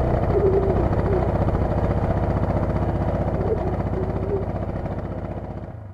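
Utility ATV engine running steadily at a constant speed, fading out near the end.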